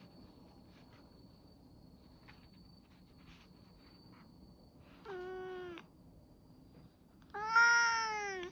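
Domestic cat meowing twice at its owner, a short call about five seconds in and a louder, longer one near the end that falls in pitch. The demanding tone of a cat asking for something.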